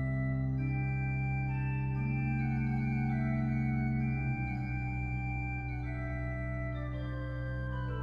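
Organ music: slow, held chords whose notes shift every second or two.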